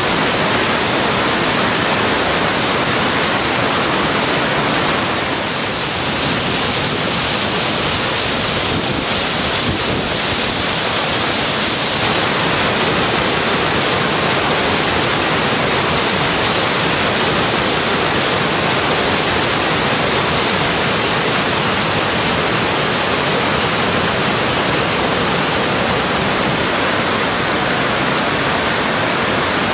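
Waterfall in full flow: a loud, steady rush of falling water and spray.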